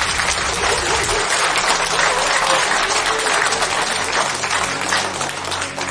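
Audience applauding, a dense clatter of many hands clapping that dies down near the end.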